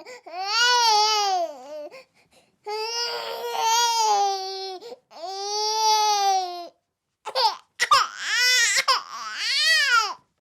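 A baby crying in long, high-pitched wails of one to two seconds each, with a few short catching sobs about three quarters of the way through; the crying stops just before the end.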